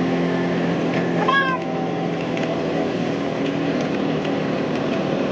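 A goat bleats once, briefly, about a second in, over the steady hum of the vehicle it is riding in.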